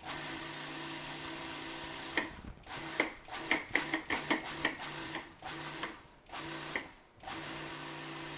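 Food processor pulsing biscuit crumbs and melted butter: the motor hums for a couple of seconds, then starts and stops in quick short pulses, then runs in a few longer pulses with brief stops between.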